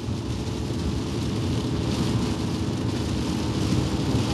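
Steady car-interior noise at highway speed in heavy rain: low road and engine rumble, with rain and spray hissing on the windshield as the wipers sweep.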